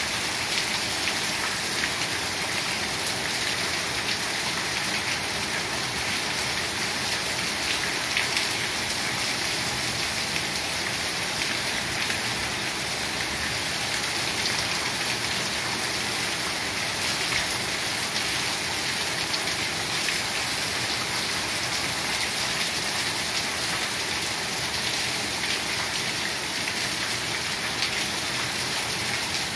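Heavy rain falling, a dense steady hiss.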